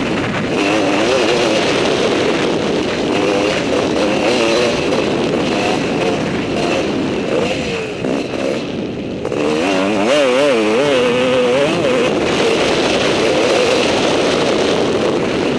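Dirt bike engine heard onboard, revving up and down with the throttle as it rides. It eases off briefly about eight seconds in, then blips rapidly for a couple of seconds before running on steadily.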